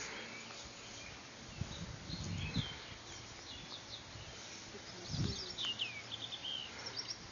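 Quiet pasture ambience: small birds chirping now and then, with a few low muffled rustles or puffs, the strongest about five seconds in.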